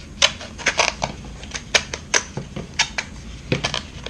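Knife cutting and prying at a glued-in plastic speaker frame: a run of sharp, irregular clicks and snaps of plastic, about a dozen.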